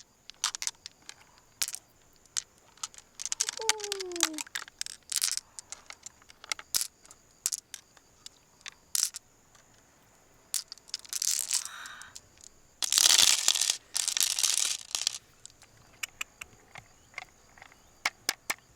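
Scattered clicks, taps and scraping from a freshwater mussel shell being handled and worked open, with two longer hissing rustles past the middle. A brief falling squeak comes about four seconds in.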